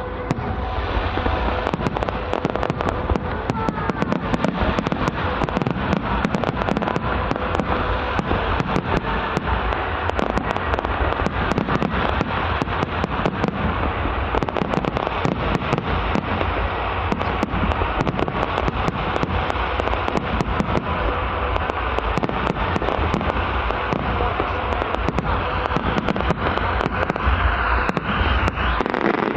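Fireworks display in full flow: a dense, continuous barrage of crackling and banging bursts with deep booms underneath.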